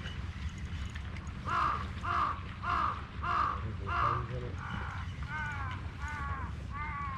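A crow cawing, about nine calls in a steady series roughly every 0.6 s starting about a second and a half in, the first five loudest. A steady low rumble runs underneath.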